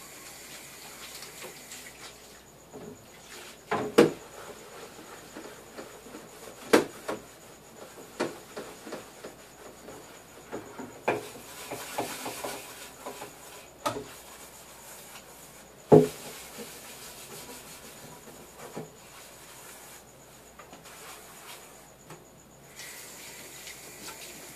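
Dishes being hand-washed in a stainless steel sink: a sponge scrubbing, and plates and pans knocking and clinking against each other and the sink, with a few sharp knocks spread through.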